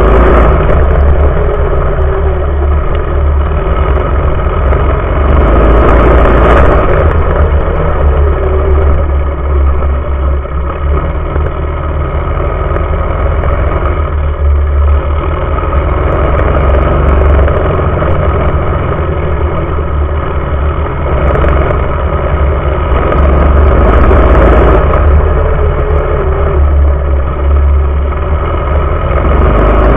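A mini bike's small engine running hard at racing speed, its loudness swelling and easing as the throttle opens and closes through the laps. It is heard close up from a camera mounted low on the frame, under a heavy low rumble.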